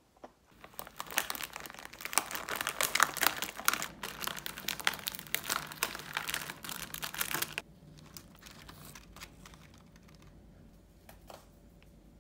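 Food packaging crinkling and rustling in dense crackles, handled for about seven seconds, then stopping; a few faint clicks follow.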